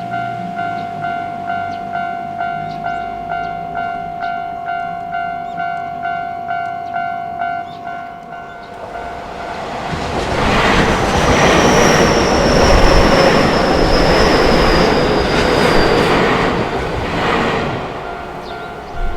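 Japanese level-crossing alarm ringing in an even electronic 'kan-kan' rhythm, about three strokes a second, and then a Keio Inokashira Line electric train passing through the crossing. The train's running noise builds from about nine seconds in, with wheel clacks and a thin high whine that falls slightly. The alarm is heard again faintly as the train clears, near the end.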